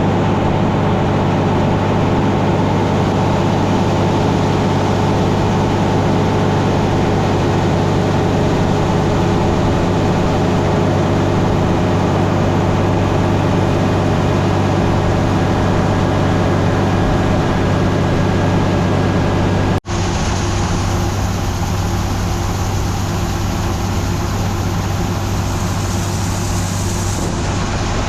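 Heavy farm machinery engine running steadily at constant speed. About twenty seconds in it cuts abruptly to a similar steady engine sound with more hiss.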